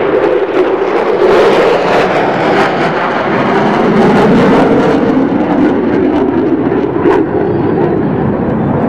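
USAF Thunderbirds F-16 Fighting Falcon jets flying over in formation: a loud, steady jet engine roar whose low drone sinks somewhat in pitch in the middle of the pass.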